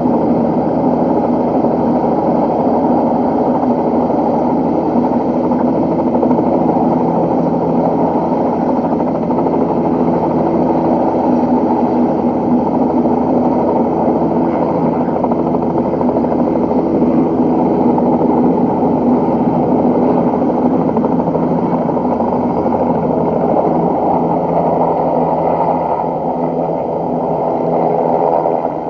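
Small helicopter's turbine engine and rotor running steadily: a loud, even drone of several tones.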